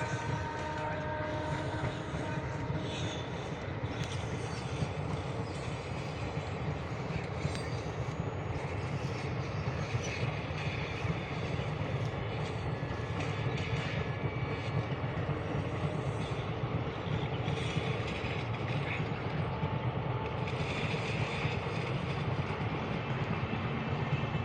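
Indian Railways train running steadily along the track, a continuous low rumble of wheels and carriages.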